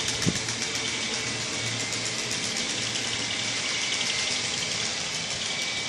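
Playing card taped to a bicycle, flapped by the spokes of the turning wheel: a rapid clicking buzz that imitates a motorcycle engine. The separate clicks are clearest in the first second, then blur into a steady rattle.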